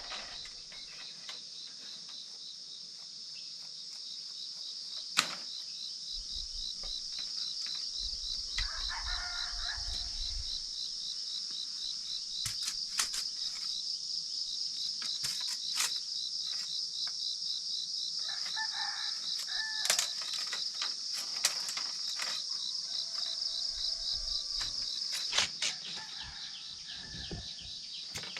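A steady insect chorus of crickets gives a high, fast-pulsing drone throughout. Short animal calls come twice, about eight and eighteen seconds in, and a few sharp knocks are heard.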